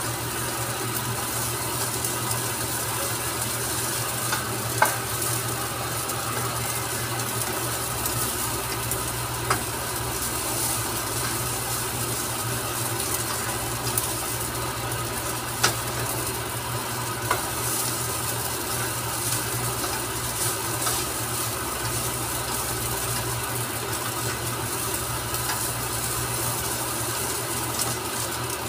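Fried rice sizzling in a nonstick pan while a black spatula stirs and scrapes through it, with a few sharp taps of the spatula against the pan, over a steady low hum.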